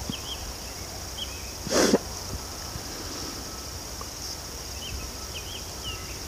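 Quiet outdoor ambience: a steady high hiss with a few faint, short high chirps scattered through it, and a brief breathy rustle about two seconds in.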